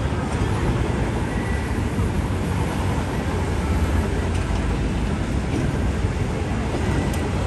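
Busy city street ambience: a steady low rumble of traffic and urban noise.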